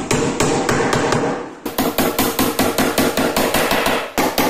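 Hammer driving a nail into a wooden strip on a laminated board with rapid repeated strikes. There is a short let-up about one and a half seconds in, then quicker, lighter-spaced taps of about five or six a second.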